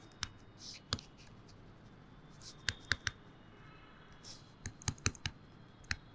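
Pen stylus clicking and tapping on a tablet screen while handwriting: about ten short, sharp clicks at irregular intervals.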